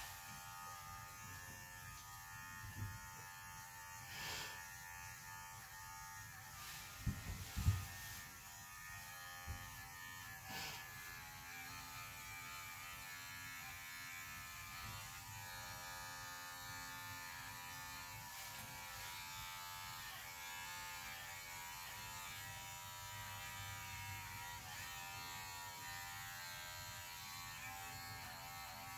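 Electric dog grooming clippers running with a steady hum as they are worked over an Airedale terrier's coat. A few short knocks come in the first ten seconds.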